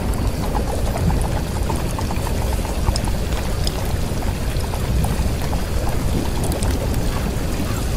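Steady rain: a dense, even rush with scattered drop clicks.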